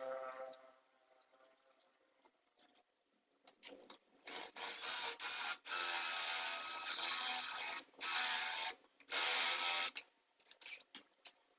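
A circular saw motor winding down in the first half second. Then, after a pause, the home-made blade height mechanism is cranked in several spells of a few seconds each: the reused angle-grinder gearbox and threaded rod turn with a gritty mechanical rattle.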